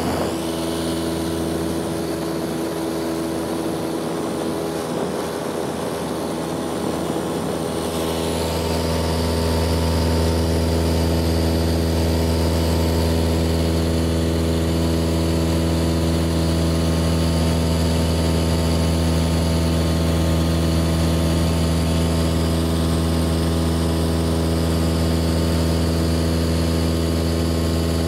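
Single-engine Cessna's piston engine and propeller running steadily in cruise flight, heard from inside the cockpit. The drone grows louder about eight seconds in and then holds steady.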